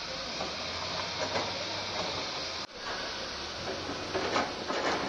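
Heavy earth-moving machinery, a tracked excavator and wheel loaders, running steadily while clearing landslide debris, with louder scraping and clanking of buckets on rock and mud near the end. The sound cuts out for an instant about halfway through.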